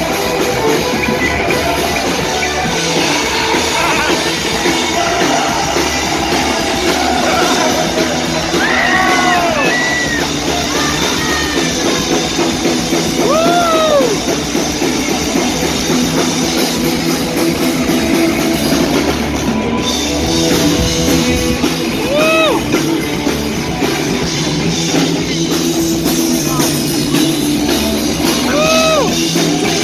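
Heavy metal cover band playing live and loud: electric guitars and drum kit, with singing and a few swooping high notes.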